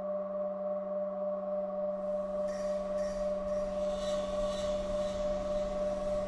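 Generative ambient music synthesised in Pure Data: several sustained electronic drone tones held steady, joined about two seconds in by a layer of high hiss that pulses softly.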